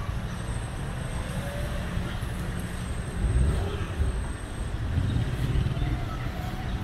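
Motor vehicle running on a road: a steady low rumble with road noise, swelling briefly about three seconds in.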